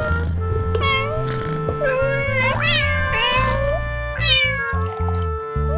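A cat meowing several times, short rising-and-falling calls, the loudest about two and a half seconds in, over background music with a steady bass line.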